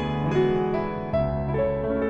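Background music: a slow, soft piano melody over sustained low notes.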